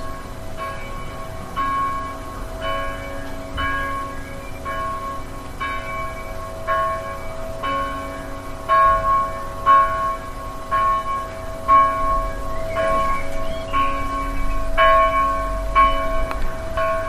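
Church bells ringing, struck about once a second, the ring sustaining between strikes.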